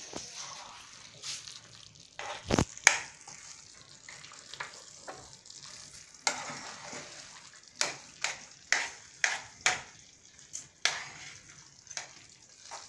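Beans being refried in a skillet, stirred and mashed with a utensil. Repeated sharp clacks and scrapes against the pan ride over a faint, steady sizzle, with a heavier knock about two and a half seconds in.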